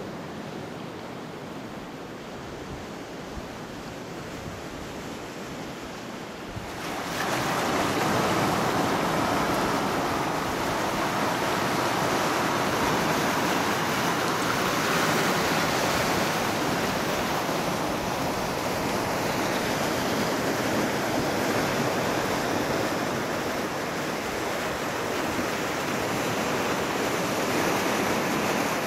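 Sea surf washing over shoreline rocks and boulders, a steady rushing wash. It starts faint and jumps suddenly to loud about seven seconds in.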